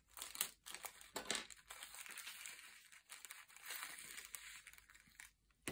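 Faint crinkling of a small plastic bag of diamond painting drills being handled, with a few light clicks.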